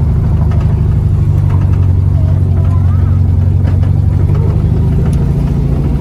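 1971 Volkswagen Beetle's air-cooled flat-four engine running as the car is driven, heard from inside the cabin as a steady low drone.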